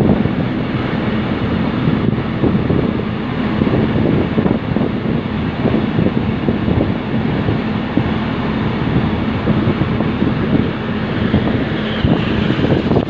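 Wind buffeting the microphone over the steady running rumble of a rail maintenance vehicle moving along the track, with a low engine hum.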